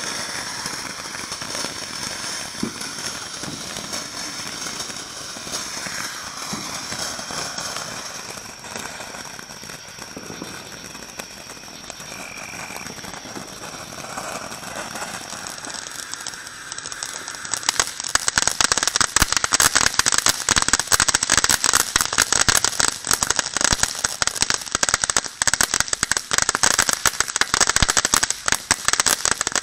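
Ground fountain fireworks spraying sparks with a steady hiss and crackle. A little past halfway a louder fountain starts dense, rapid crackling, which cuts off suddenly near the end.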